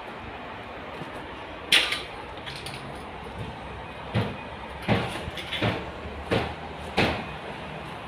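A handful of sharp, irregular knocks over a steady background hiss: one loud knock about two seconds in, then five more in the second half.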